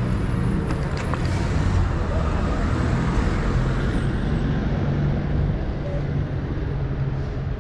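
Street traffic noise with a steady low engine hum from cars nearby.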